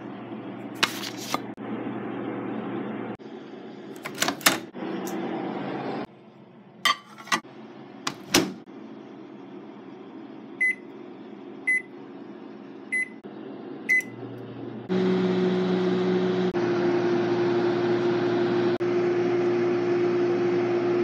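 Inverter microwave oven being loaded and started: a few knocks and clunks of the plate going in and the door shutting, the loudest about eight seconds in, then four short keypad beeps about a second apart. From about fifteen seconds in, the oven runs with a steady hum while it cooks.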